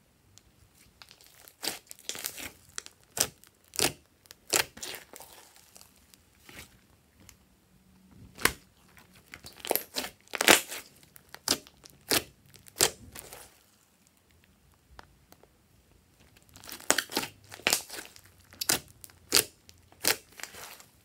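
Glossy slime being kneaded and squeezed by hand, giving irregular sharp wet pops and crackles in clusters, with a short lull about two-thirds of the way through.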